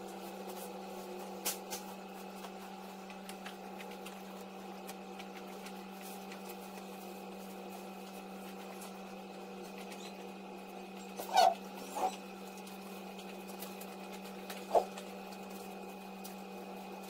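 A steady machine hum with several fixed pitches, over which a few brief squeaks and rustles come from the mattress protector being pulled over the mattress: two close together just past the middle and one more near the end.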